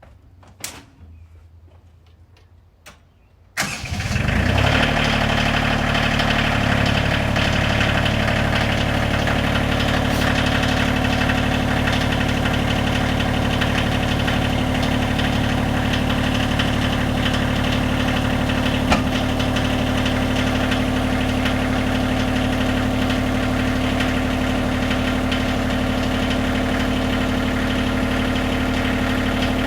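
Bobcat CT2025 compact tractor's diesel engine starting after a few faint clicks, catching at once, then idling steadily; its pitch settles a few seconds after it catches.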